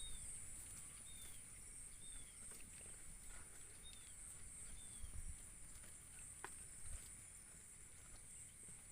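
Quiet rural ambience: a steady high-pitched insect drone, a bird's short falling chirp repeated about once a second in the first half, and a few soft knocks.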